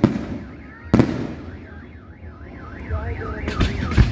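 Aerial firework shells bursting: a sharp bang at the start, a louder one about a second in, and a cluster of bangs and crackle near the end. Behind them an electronic alarm warbles rapidly up and down, about four times a second.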